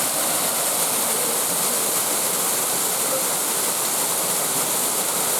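Waterfall on a stream, water pouring and splashing in a steady, unbroken rush.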